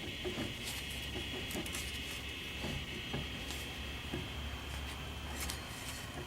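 Irregular light clicking and knocking, several times a second, over a steady hiss, from the worn water pump of a 1964 Buick Wildcat's 401 nailhead V8; the pump shaft has too much play because its bearings are bad.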